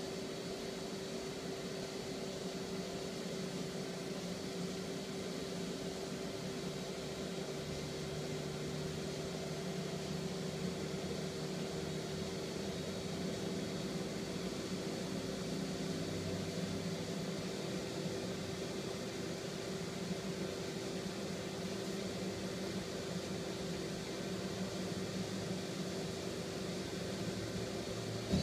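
Daewoo Puma 12L-B CNC lathe running under power: a steady machine hum with a constant mid-pitched tone and a faint high whine. A lower hum drops in pitch about eight seconds in and comes back up about sixteen seconds in.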